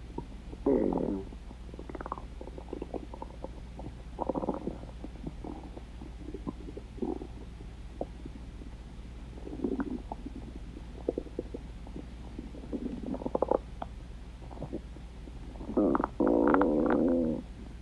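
Stomach growling: a run of irregular gurgles and short squelching rumbles, with a loud one about a second in and a longer, pitched growl near the end.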